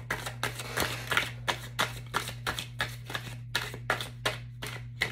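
A deck of oracle cards being shuffled by hand: a steady run of quick card slaps and riffles, about three a second.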